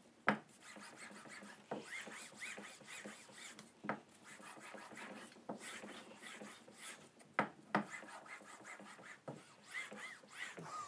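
The edge of a clear acrylic sheet is rubbed back and forth on a cloth with polishing paste, making a continuous rasping, scratchy rub with short squeaks. A few sharp clicks are scattered through it.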